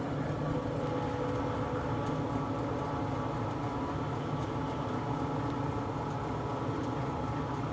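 Steady machine hum with several held tones, unchanging throughout.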